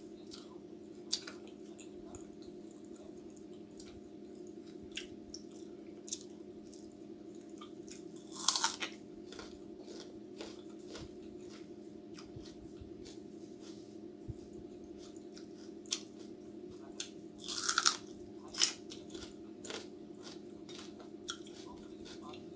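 Close-up chewing and crunching of chicken samosa with raw onion and green chili, with many small wet mouth clicks and two louder crunchy bites about 8 and 18 seconds in. A steady low hum runs underneath.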